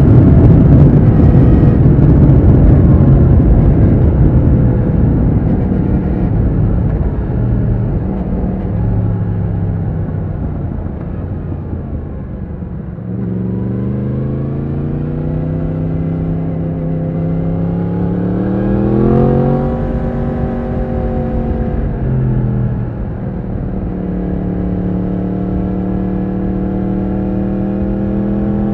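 2020 Yamaha MT-10's crossplane inline-four engine heard from on board. It starts loud and fades as the bike slows over the first dozen seconds, then picks up about halfway, rising in pitch for several seconds before easing off, and after a step down near the end runs at a steady cruise.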